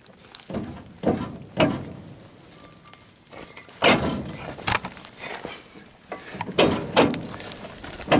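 Footsteps crunching on dry grass and gravelly ground, about eight uneven steps with a pause of nearly two seconds in the middle.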